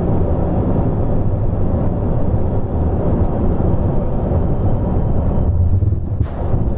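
Airliner flight deck noise during landing: a steady, loud rumble of engines and airflow, with a brief sharper noise about six seconds in.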